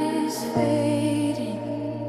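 Slow electronic worship music: sustained synth chords with no beat, the chord changing about half a second in.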